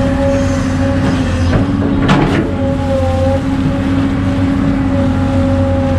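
Excavator diesel engine running steadily under work, with one sharp clank about two seconds in.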